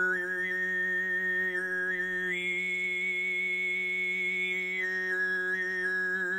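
Overtone singing: one long low drone note held steady, with a bright overtone melody above it that steps up twice and then steps back down.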